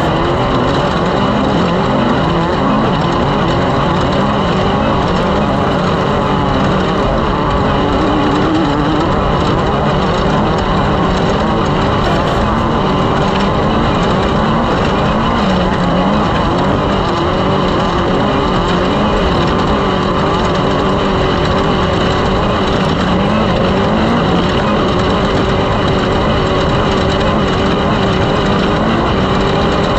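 Engines running steadily, their pitch wavering slowly, under a loud constant rush of noise.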